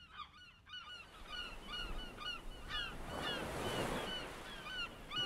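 A flock of birds calling: many short, curved calls, repeated and overlapping, over a rushing surf-like noise that swells about three seconds in.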